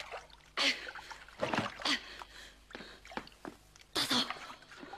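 Water splashing in several short bursts.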